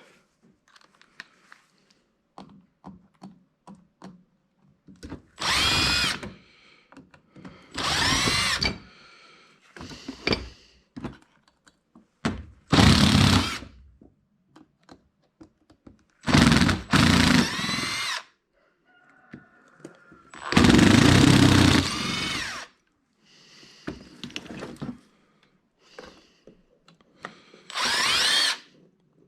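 Power drill run in about six short bursts of one to two seconds, the motor whining up to speed and winding down each time, with quiet gaps between.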